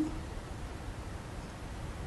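Quiet room tone: a steady low hiss and hum with no distinct sounds.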